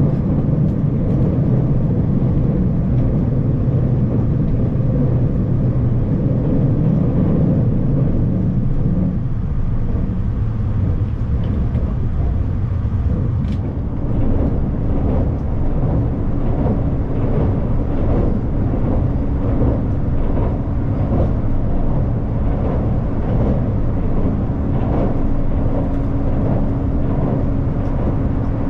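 Train running, heard from inside the carriage: a steady low rumble, with a steady hum joining about halfway through.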